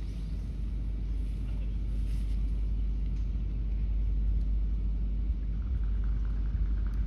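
Steady low outdoor rumble with no club strike or other distinct event.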